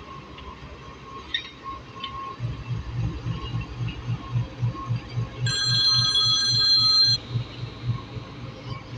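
Pakistan Railways GE GEU-40 diesel-electric locomotive rolling slowly past, its engine throbbing low and evenly about four times a second from a couple of seconds in. Midway, a horn sounds a high multi-tone chord for about a second and a half, starting and stopping abruptly, the loudest sound.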